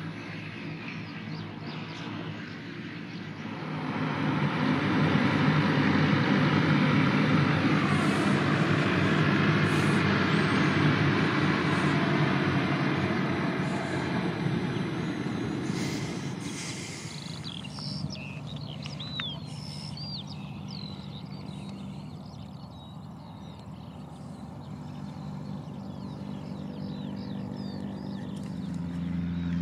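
Twin turboprop engines of an Air New Zealand Bombardier Dash 8 Q300 running as it taxis, loud from a few seconds in and dying away about halfway through. Birds chirp in the quieter stretch, and near the end a light piston-engine training plane drones steadily, growing louder.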